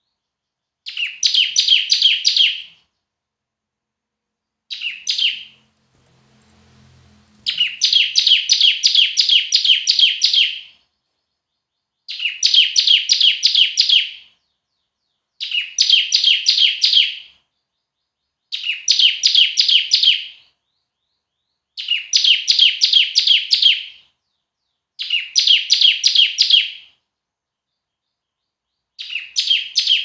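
A ciblek (prinia) singing loudly and vigorously. It repeats a song phrase of rapid, sharp, high notes, each phrase about two seconds long, with short pauses between them.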